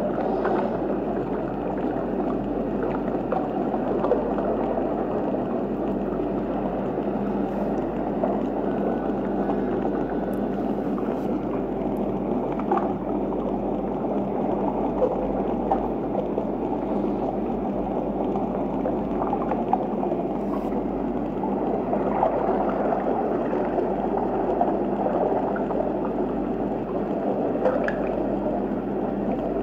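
Steady water noise of a jellyfish aquarium tank: an even rush with a faint low hum underneath and a few faint clicks.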